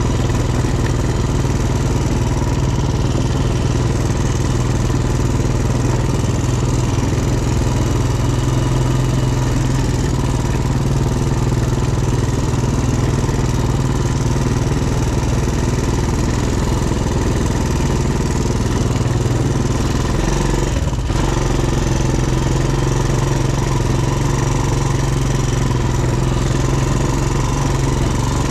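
ATV engine running at a steady pitch, with a short break in the sound about three quarters of the way in.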